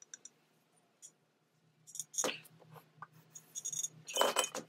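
A rag rubbing and light clinks and scrapes as the aluminium casing of a Thomas 600-8 airbrush compressor is wiped and handled on a newspaper-covered bench. The sounds come in a few short bursts, with the loudest near the end.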